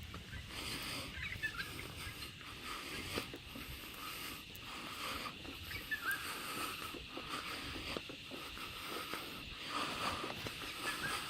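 Footsteps of a person walking, about one every second, over a steady outdoor background hiss with faint high chirps.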